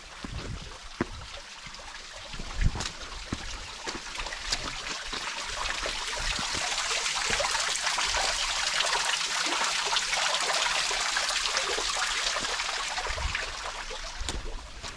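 A trickle of running water, swelling over several seconds to its loudest about halfway through and fading again near the end. Scattered footsteps come before and after it.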